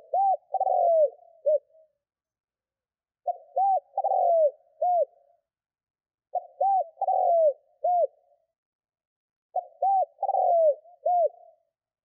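Spotted dove cooing its song four times, one phrase about every three seconds, each a quick run of four or five low coos.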